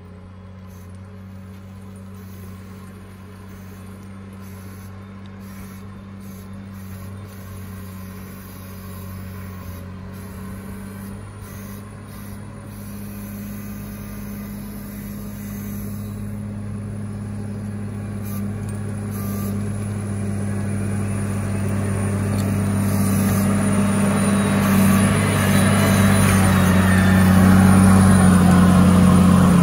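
CAT 938G wheel loader's diesel engine running steadily, growing louder throughout as the machine drives up close.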